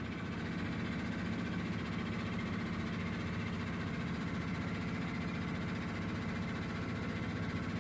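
Tour boat's engine running steadily, a low even hum with a fast regular throb, heard from on board.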